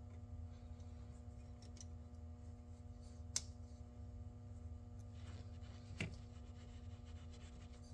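Faint clicks of pliers and metal as someone works at a stuck pin on a UTV's shift linkage, with two sharper clicks a few seconds apart, over a steady low hum.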